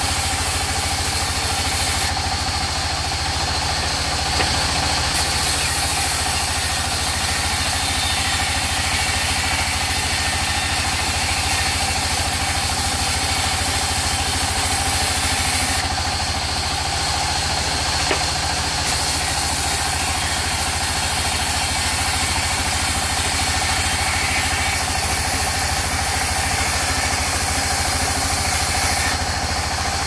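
Sawmill band saw running steadily as a plank of rain tree wood is fed through the blade: a constant low machine hum with a high cutting hiss over it. The hiss thins out for a few seconds three times.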